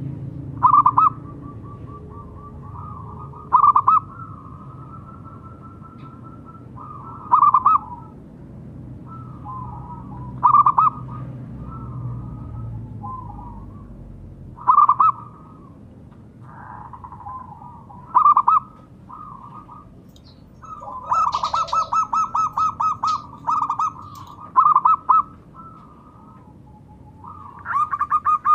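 Zebra dove (perkutut) cooing: loud short coos about every three to four seconds, with softer cooing between them, then two quick runs of evenly spaced staccato coos near the end.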